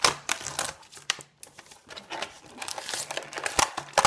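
Clear plastic toy packaging crinkling and crackling as it is handled and squeezed, in irregular bursts of crackles.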